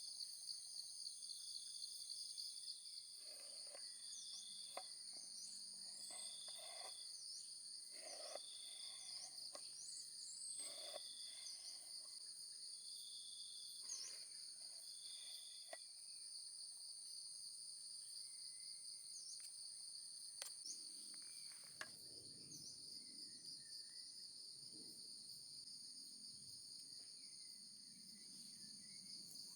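Steady high-pitched chorus of crickets or similar insects. For the first half a short, even high note repeats about every second and a half, with scattered small chirps and a few faint clicks and soft knocks.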